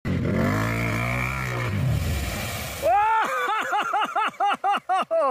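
An engine drones low and steady, wavering a little in pitch. About three seconds in, a person breaks into high-pitched laughter, rhythmic "ha-ha-ha" at about four a second.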